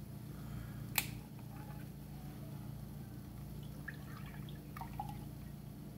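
Milk pouring from a plastic jug into a glass, the glass filling, with a sharp click about a second in. A steady low hum runs underneath.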